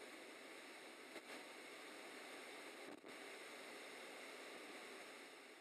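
Faint steady hiss with two soft clicks, about a second and three seconds in.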